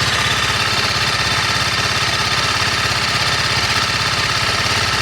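TVS Apache RR310's single-cylinder engine idling on a cold start, with a steady, rapid clatter over the engine's usual mechanical noise. The owner suspects the chain tensioner or the valve clearance, knocked out of adjustment when the bike fell.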